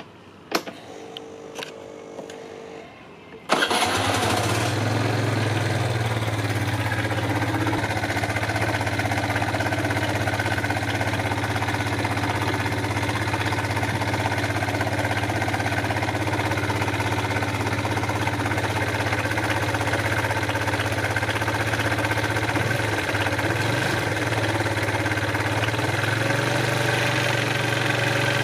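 Suzuki Let's 4 scooter's 50cc four-stroke single starts abruptly about three and a half seconds in, after a few faint clicks, then idles steadily. The engine has an abnormal noise that the mechanic suspects comes from a slack cam chain letting the chain slap its guide.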